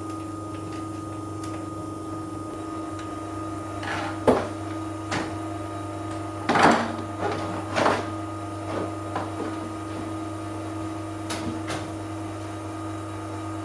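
Carimali Kicco espresso machine's water pump running with a steady hum as it fills the boiler. Several short knocks and clicks from handling break in over it, the loudest a few seconds in and near the middle.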